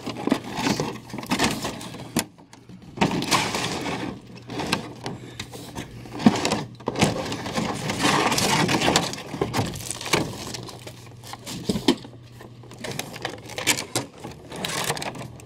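A cardboard box and plastic packaging being handled and rustled as a boxed statue is pulled out. The sound is irregular scraping and crinkling with scattered clicks and knocks, busiest about halfway through.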